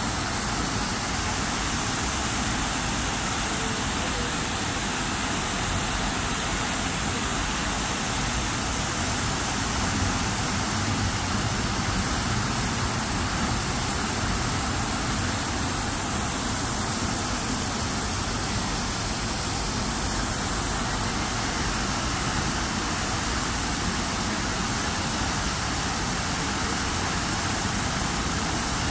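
The Walker Fountain's tall central jet and ring of smaller jets splashing steadily into the basin, a constant rush of falling water. A low hum of road traffic runs beneath it.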